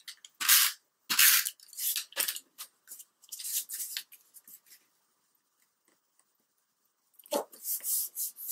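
Cardstock sliding and rustling as a paper panel is handled, aligned and pressed down onto a card base: a run of short dry scrapes, a lull of a few seconds, then more scrapes near the end.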